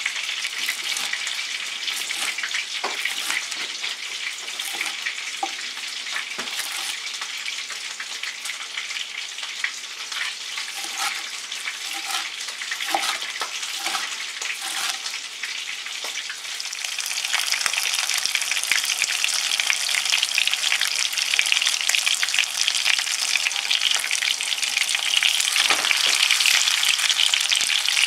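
A knife crunching through the crisp breaded crust of fried pork cutlets in short crackles. About two-thirds of the way through, a louder steady sizzle takes over: breaded patties shallow-frying in hot oil in a frying pan.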